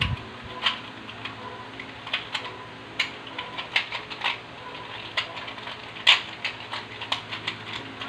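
Plastic 3x3 Rubik's cube layers being twisted by hand: a dozen or so irregular sharp clicks and clacks, the loudest about six seconds in.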